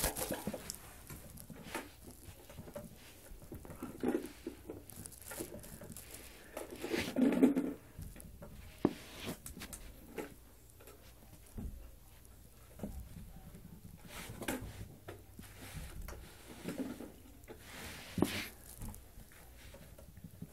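Soft, scattered patting and scratching on carpet at the gap under a door, with a few louder knocks and rustles spread through.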